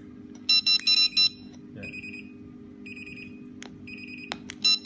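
Wireless infrared beam burglar alarm giving its beep prompts as the beams are tested. A quick run of four loud, high electronic beeps comes about half a second in. Several shorter, softer single beeps and a couple of clicks follow, then two more loud beeps near the end, all over a steady low hum.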